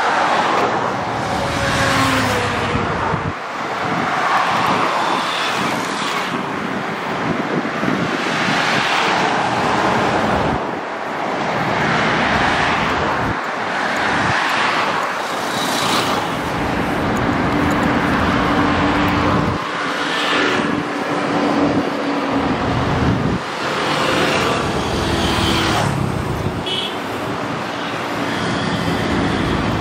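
Diesel tractor engines running close by in a slow-moving line, their sound swelling and fading every few seconds as each passes, with a steady low engine hum for several seconds past the middle.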